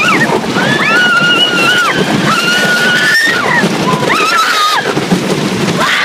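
Roller coaster riders screaming: three or four long, high screams, each about a second, rising and falling, over a loud rush of wind across the phone's microphone.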